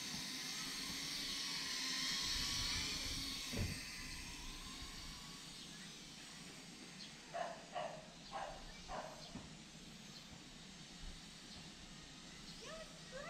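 Micro quadcopter's motors and 2.5-inch propellers running with a high whine, fading out over the first few seconds as it flies off. Later, four short animal calls about half a second apart.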